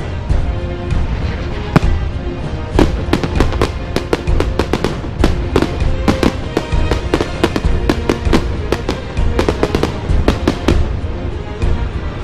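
Fireworks going off in a rapid, irregular string of sharp bangs and cracks over a steady low rumble, with music playing underneath.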